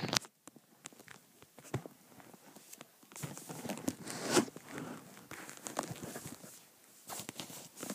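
Handling noise: scattered rustles and light knocks as a handheld camera device is moved about, busiest about three to four seconds in.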